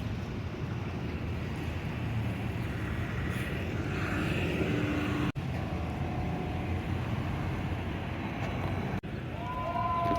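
City street traffic: a steady low rumble of passing vehicles, with a siren starting to sound near the end.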